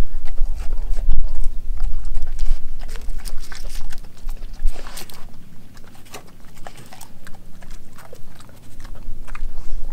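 Dog licking and chewing scraps of raw food off a plastic cutting board, with quick wet smacks and clicks of tongue and teeth on the board. The smacking is densest in the first few seconds and thins out after that.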